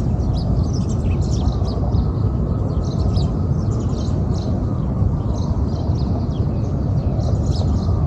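Small birds chirping in quick, short, high notes, several a second, over a steady low rumble.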